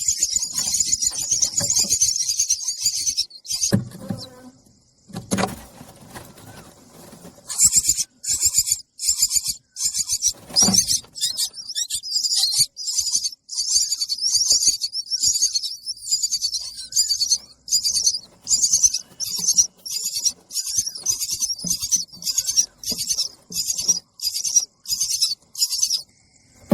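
Nestling birds giving high-pitched begging calls for food: a continuous chatter for the first three seconds, a lull of about four seconds broken by a few low thumps, then a fast run of short call bursts, about two a second.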